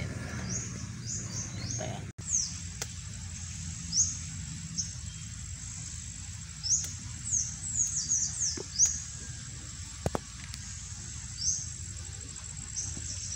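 Birds calling in quick runs of short, high chirps that sweep downward, over a steady high insect whine.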